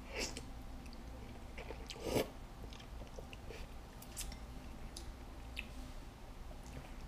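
A person eating a forkful of thick, chewy instant ramen noodles: a short sucking-in of the noodles near the start, then quiet chewing with a few soft wet clicks and smacks.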